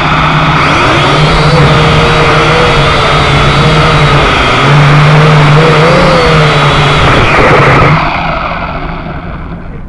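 Syma X5HC quadcopter's motors and propellers buzzing loud and close, recorded by its own onboard camera, the pitch wavering slightly as the drone flies. About eight seconds in the buzz cuts out and dies away as the drone comes down on the pavement.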